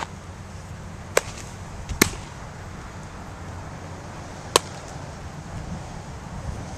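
A baseball smacking into a leather glove: three sharp pops, about a second in, about two seconds in, and a loudest one about four and a half seconds in, over a steady low rumble of wind.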